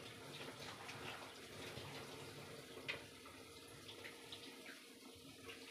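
Pot of beef and vegetable soup boiling: a faint, steady bubbling with scattered small pops, one a little louder about three seconds in.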